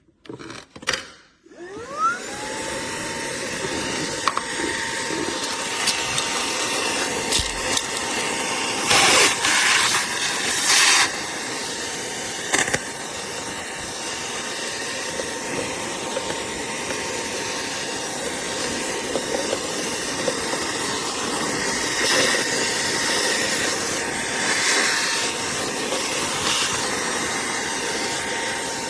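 Fanttik Slim V10 APEX cordless handheld vacuum switched on, its motor whine rising within about a second and then running steadily: a high whine over a rush of air. A few brief louder bursts come about a third of the way through.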